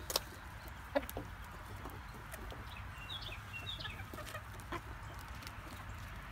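Backyard chickens clucking quietly around a hand offering bread, with a few sharp clicks and a short run of high chirps about three seconds in.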